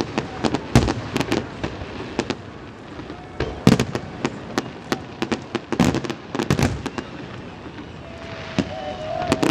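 Fireworks display: aerial shells bursting in an irregular series of sharp bangs and crackles, with heavier clusters about four and six seconds in and a short lull after the first second or so.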